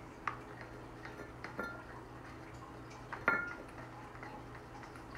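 Flour being poured from a paper bag into a glass measuring cup, with a few light clinks and taps of glass, the loudest about three seconds in.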